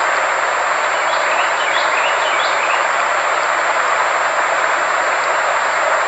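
A sound-therapy track: a steady, even rushing noise with a thin constant high tone over it. A few faint chirps come through about one to three seconds in.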